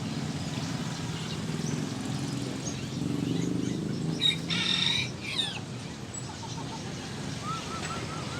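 Caged birds and fowl calling: scattered chirps, one short loud call about four and a half seconds in, and a quick run of small rising chirps near the end, over a steady low background rumble.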